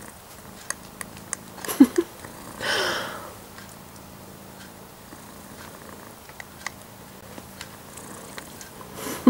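Cat purring steadily as a half-grown kitten suckles at its mother, with soft smacking clicks from the suckling. There is a brief louder breathy sound about three seconds in.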